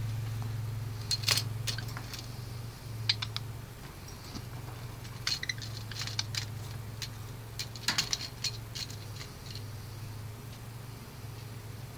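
Small toy truck clicking and rattling in scattered bursts of light taps as a parakeet plays with it, over a steady low hum.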